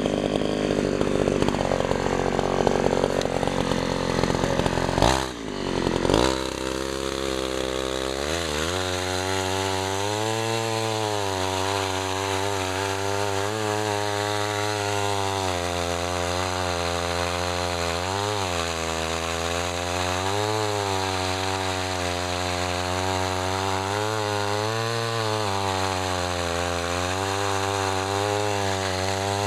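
Sears Craftsman 3.75 two-stroke chainsaw running at speed. It drops off abruptly about five seconds in, then settles into a steady idle that wavers slightly every couple of seconds.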